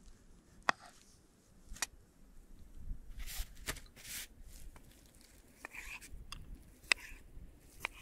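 Scattered sharp clicks and knocks, about half a dozen, with two short rustles a little past the middle.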